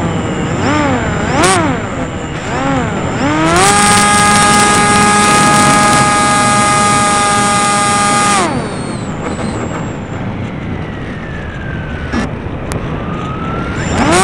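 Homemade RC plane's motor and propeller, heard from on board: its whine rises and falls repeatedly, then holds high and steady for about five seconds, then drops away, leaving a quieter rush of air before winding up again near the end.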